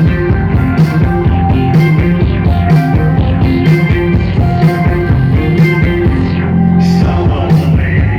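Live band performance at full volume: a steady drum beat over a heavy bass line and sustained keyboard/guitar notes, with the beat dropping out briefly near the end before returning.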